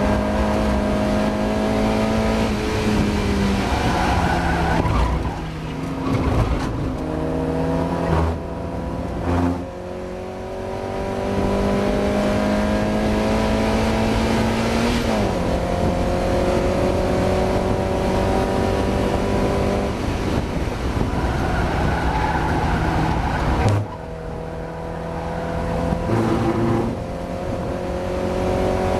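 Mazda MX-5 race car's four-cylinder engine at racing speed, revving up through the gears. Its pitch climbs steadily and drops sharply at each upshift or lift, about half a dozen times.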